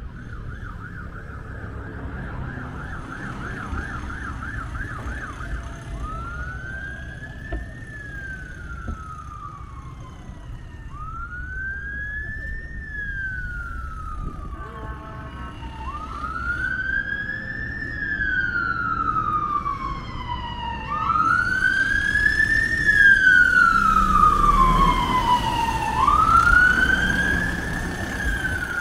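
Fire engine siren approaching: a fast yelp for the first few seconds, then a slow wail that rises quickly and falls away about every five seconds, getting steadily louder. A low rumble of city traffic runs underneath.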